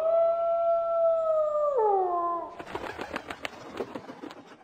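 A single long wolf howl that holds one steady pitch, then drops and fades about two seconds in. It is followed by a couple of seconds of rapid crackling clicks and hiss.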